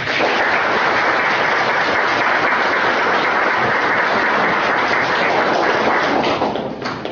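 Audience applauding: steady clapping that starts at once and dies away near the end.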